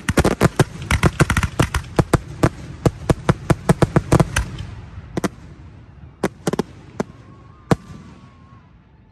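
Aerial fireworks going off: a rapid run of sharp bangs, about five a second, for the first four and a half seconds, then a few scattered bangs that fade out.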